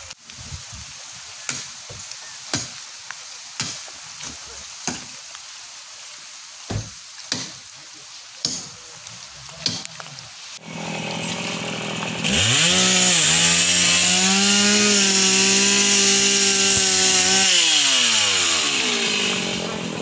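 A chainsaw revs up about halfway through, runs at a steady high speed for about five seconds, then winds down near the end. Before it starts there is a string of sharp, irregular clicks and knocks, about one a second.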